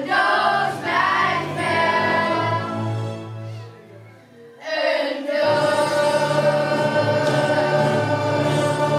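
A children's choir singing with musical accompaniment. The song dies away about four seconds in, and a new instrumental passage of held chords starts soon after.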